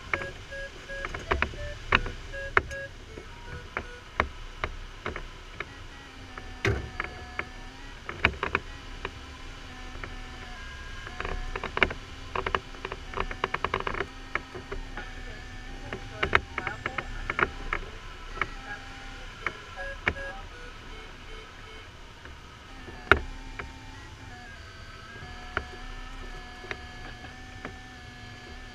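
Glider's electronic variometer tone, beeping on and off at first and then sounding steadily, stepping up and down in pitch as the rate of climb or sink changes. Behind it are a low rush of airflow over the cockpit and frequent sharp clicks and knocks, the loudest about 23 seconds in.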